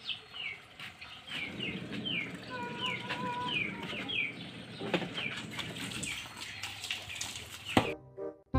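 Small birds chirping in short, repeated falling notes, several a second, with one longer held whistle about three seconds in. A few sharp clicks, a knife knocking against a steel colander, come through now and then.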